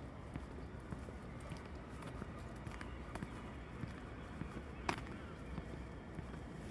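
Footsteps on snow-covered pavement, a stream of small soft steps over a low steady outdoor rumble, with one sharp click about five seconds in.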